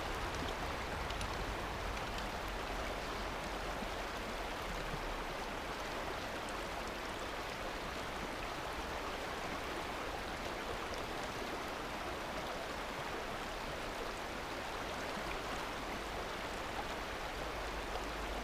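Running water of a river flowing steadily, an even rushing sound.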